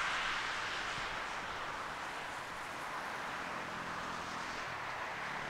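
Jet engines of an easyJet Airbus airliner, a steady rushing noise that eases off slightly over the first couple of seconds.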